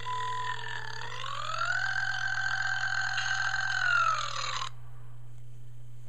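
A long, drawn-out belch sound effect played through a handheld device's small speaker. Its pitch rises about a second in, holds, then drops before cutting off abruptly about a second before the end.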